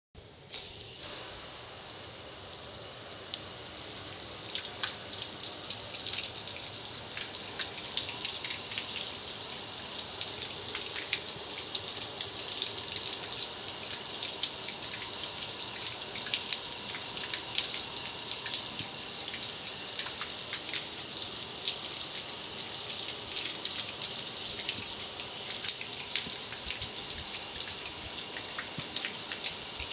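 Water from a garden hose spray nozzle hitting the lid and front of a gas grill: a steady spraying hiss with the patter of drops running off the metal. It starts about half a second in.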